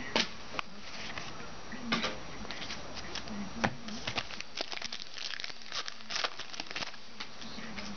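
Foil trading-card pack wrapper crinkling and tearing as a pack is ripped open and the cards handled, in irregular sharp crackles that come thicker in the second half.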